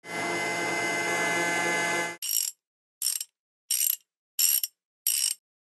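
Mechanical sound effects for an animated tractor assembling itself: a dense, continuous mechanical clatter for about two seconds that cuts off sharply, then five short, high-pitched mechanical bursts about three quarters of a second apart.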